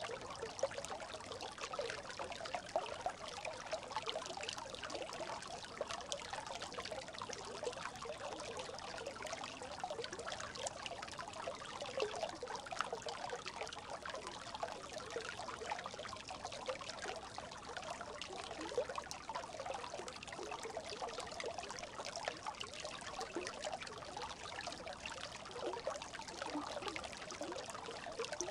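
A brook babbling steadily: a continuous trickle full of small bubbling gurgles.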